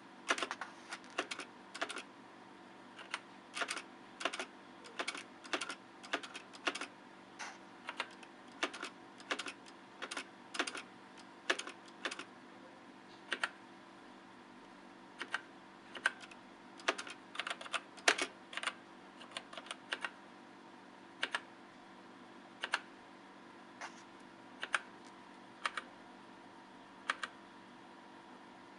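Typing on a Readson Kananic TK-1 mechanical keyboard with brown switches: irregular key clicks, quick runs of strokes in the first half, then slower single presses about a second apart.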